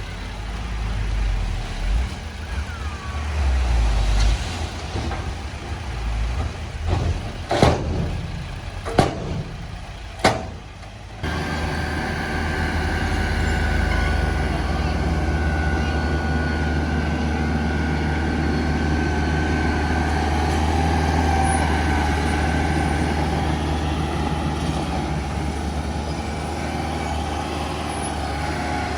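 Heavy diesel earthmoving machinery running. An uneven low rumble with a few sharp bursts in its first ten seconds or so, then an abrupt change to a steady engine drone with a high whine.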